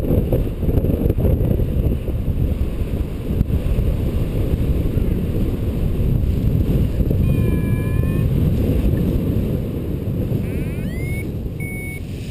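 Airflow buffeting the camera microphone in paraglider flight: a steady low rumble of wind noise that eases off over the last couple of seconds as the glider slows near the ground to land.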